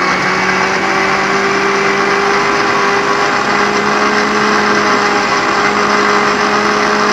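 Electric mixer grinder (mixie) running at full speed, grinding coconut for a curry paste: a steady motor whine and hum, its pitch creeping slightly upward.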